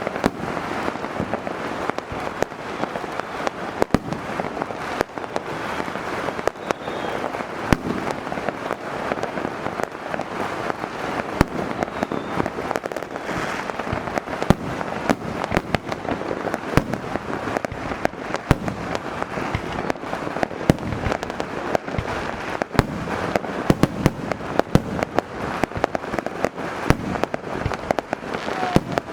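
A continuous barrage of firework explosions from 4-inch firework cakes: many sharp bangs over dense, unbroken crackling, never letting up.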